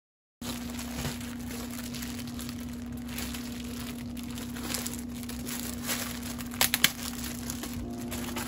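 Packaging crinkling and rustling as it is handled and opened, with scattered sharp crackles, two of them louder about two-thirds of the way through, over a steady low hum.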